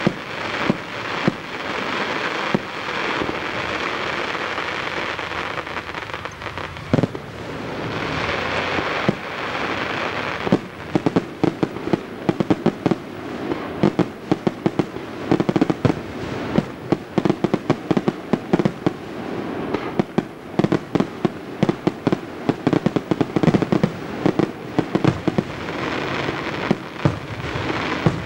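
Aerial firework shells bursting overhead. A dense crackling hiss of bursting stars for about the first ten seconds, then a rapid barrage of sharp bangs, several a second.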